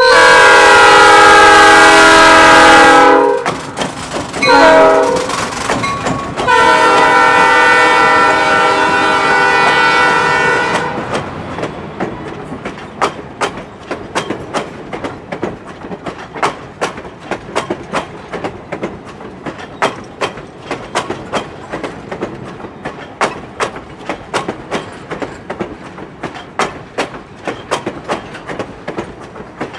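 Diesel locomotive's multi-chime air horn blowing a long blast, a short one and another long one. Then the clickety-clack of passenger coach wheels over the rail joints as the cars roll past, two or three clicks a second.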